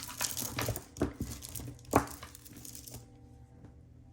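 Rustling and crinkling of handled jewelry and its wrapping, with a sharp clack about two seconds in. It goes quiet after about three seconds.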